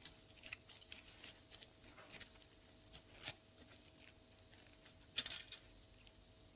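Thin kitchen foil crinkling quietly in short, irregular crackles as a small strip is twisted between the fingers into a thin strand, with a sharper crackle about five seconds in. The crackling thins out near the end.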